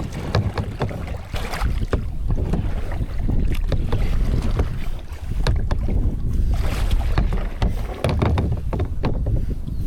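Strong wind buffeting the microphone in a low, continuous rumble, with scattered short knocks from handling in the kayak.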